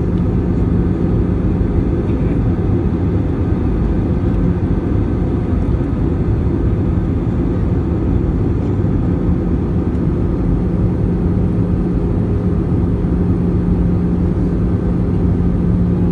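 Steady cabin noise inside an Airbus A320 on its descent to land, heard by the window over the wing: the engines and rushing air make an even roar with a constant low hum.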